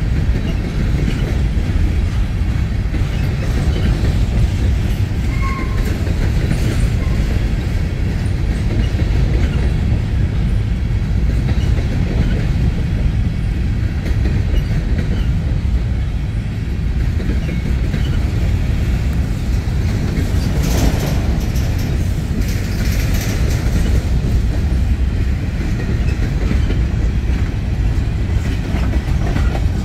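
Covered hopper grain cars of a freight train rolling past close by: a steady rumble of steel wheels on the rail.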